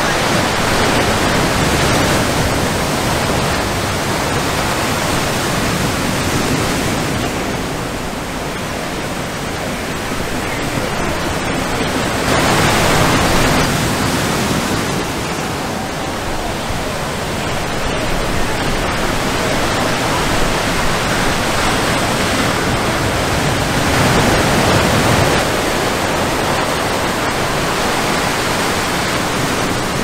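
Ocean surf breaking: a steady wash of white water with louder surges about twelve seconds in and again about twenty-four seconds in.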